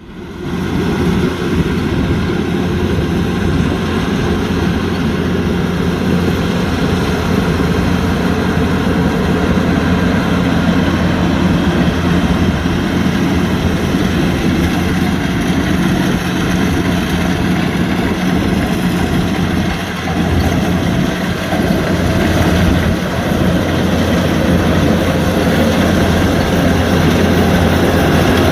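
Kubota DC-105X combine harvester's diesel engine running steadily under load.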